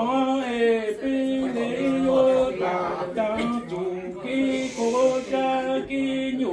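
A man singing Hmong lug txaj sung poetry unaccompanied, holding long drawn-out notes in phrases with short breaks between them.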